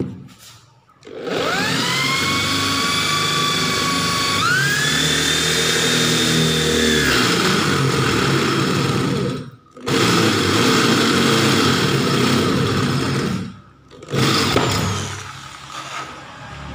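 Electric drill boring through a square metal tube: the motor whine rises as it spins up, runs steadily under load and steps up in pitch partway through, stops briefly and starts again, then cuts off and winds down near the end.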